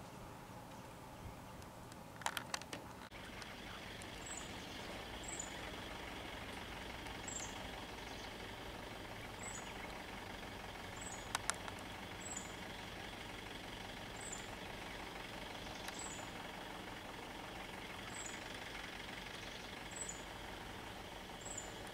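Stopped vehicles' engines idling steadily, a jeep and a Mitsubishi Canter truck among them. A short high chirp repeats about once a second over it, and a few sharp clicks come about two seconds in and again near the middle.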